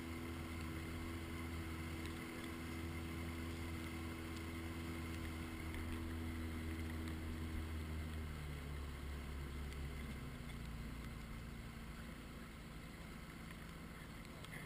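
Inflatable boat's outboard motor running with a steady hum, then throttled back about eight seconds in, running quieter and lower as the boat slows.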